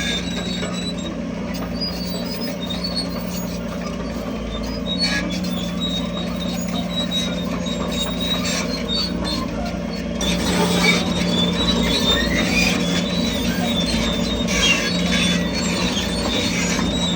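Crawler bulldozer working: the diesel engine runs with a steady hum while the steel tracks squeal and squeak, getting louder about ten seconds in.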